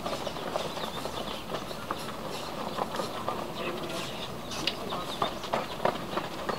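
Outdoor ambience of a football drill on a dirt pitch: scattered short taps and knocks from ball touches and footsteps, with faint distant voices and chirps.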